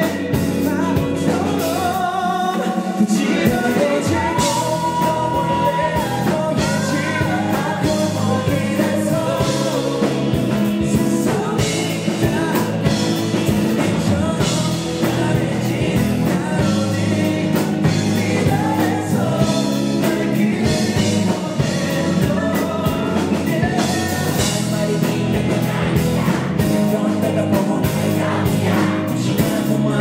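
Live rock band music with singing, an electric bass played throughout under the vocals.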